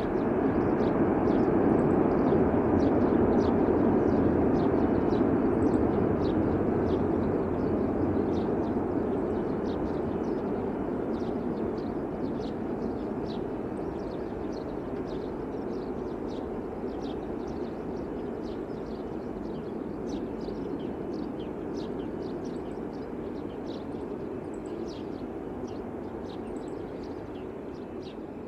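Airbus A380-800's four Rolls-Royce Trent 970 jet engines roaring as the airliner rolls out down the runway after landing. The roar peaks a few seconds in and slowly fades as the aircraft moves away. Short high chirps sound throughout.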